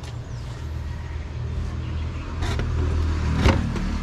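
A low steady rumble that grows stronger about half a second in, with two short knocks about two and a half and three and a half seconds in.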